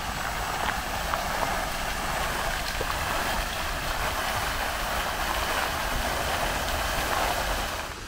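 Garden fountain jets splashing steadily into their basin: an even hiss of falling water, with a faint low rumble underneath.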